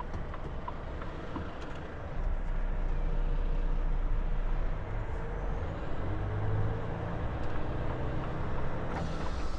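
Volvo FH truck's diesel engine and drivetrain heard from inside the cab as the truck pulls away from a standstill and gathers speed, a steady low rumble that gets louder about two seconds in.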